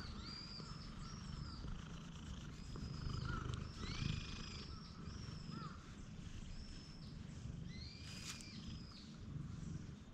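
Orange-and-white cat purring steadily while its chin is scratched. Short high bird calls repeat over the top every second or so.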